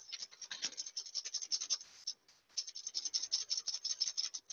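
Wire balloon whisk scraping rapidly around a metal mixing bowl, about eight strokes a second, with a brief pause about two seconds in. Egg yolks, sugar and passion fruit are being whisked into a sabayon over a bain-marie, beaten towards the ribbon stage.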